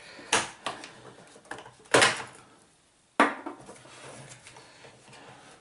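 AA batteries being prised out of the Casio DH-100's plastic battery compartment and set down on a wooden desk: a string of clicks and clacks, the two loudest about two and three seconds in.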